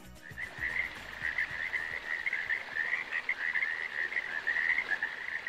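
A chorus of frogs calling: a dense, fluttering trill held at one steady pitch, coming in just as the music ends.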